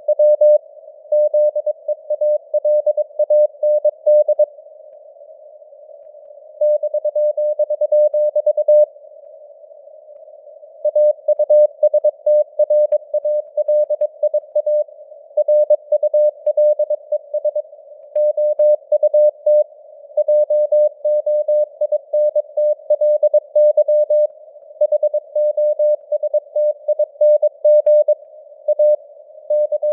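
Morse code (CW) at 22 words per minute: a single steady tone keyed on and off in quick dots and dashes over a narrow hiss of simulated radio noise. The keying pauses twice for about two seconds between words, leaving only the hiss.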